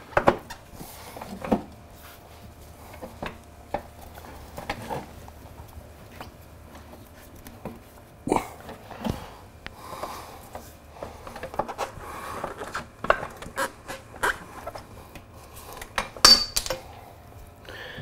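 Scattered metal clinks and knocks of a motorcycle's rear-axle spacers and axle being handled and fitted into the rear wheel hub, with a sharper knock just after the start and another about 16 seconds in.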